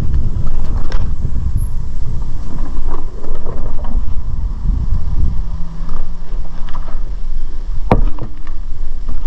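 Mountain bike ridden over a dirt trail and wooden ramp and log features: steady tyre rumble and wind buffeting the camera's microphone, with scattered knocks from the bike and a sharp knock about eight seconds in.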